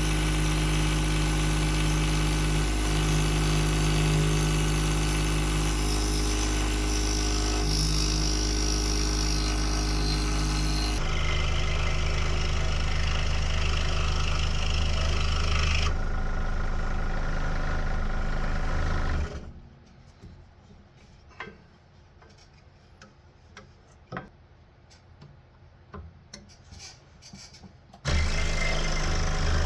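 Electric scroll saw running with a steady motor hum, cutting through layered wood. It stops for about nine seconds, leaving only small clicks and taps, then starts running again near the end.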